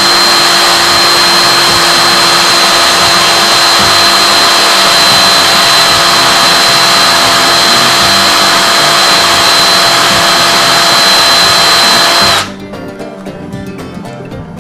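High-rpm wire wheel spinning and scrubbing oxidation off the copper wire ends to clean them for soldering: a loud, steady power-tool whine and rasp. It stops about twelve seconds in, leaving background music.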